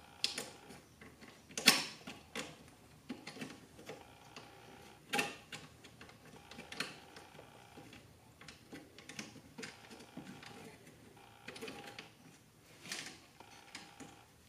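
Irregular small metal clicks and taps as a pin, sear and trigger are worked into the fire control group of a GHK AK gas-blowback airsoft rifle. The parts are not seating. The sharpest click comes about two seconds in, with a few more spread through.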